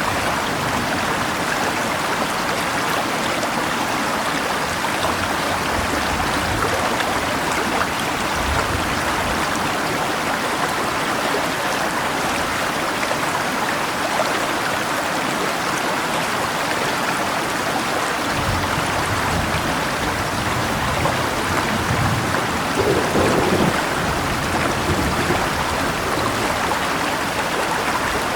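Steady rushing of a river with rain falling, and low rumbles of distant thunder coming and going several times, one a little louder about three-quarters of the way through.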